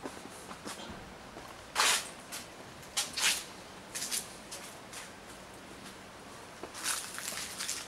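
Footsteps crunching and rustling through dry fallen leaves: a few scattered steps, then a quicker run of them near the end.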